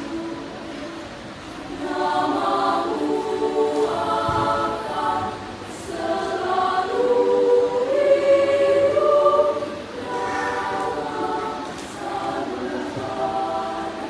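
Junior high school choir singing in sustained phrases that swell louder about two seconds in and peak near the middle.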